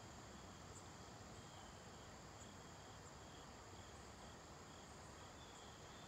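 Near silence: faint outdoor ambience with a steady, thin, high insect trill and faint short chirps repeating every half second or so.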